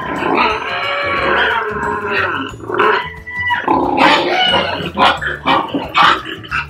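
Pigs calling during natural mating of a Duroc boar on a Large White sow: one long drawn-out squealing call, then a run of shorter grunting calls a second or so later.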